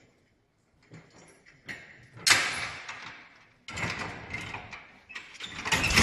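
Small engine being pull-started by hand: about three hard yanks of the starter cord, each followed by a brief rush of noise that dies away. The engine catches and keeps running near the end.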